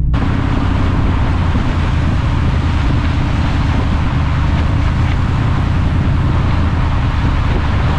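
A vehicle driving on a gravel road, heard from outside the vehicle: steady tyre noise on the gravel over the low hum of the engine, with wind noise on the microphone.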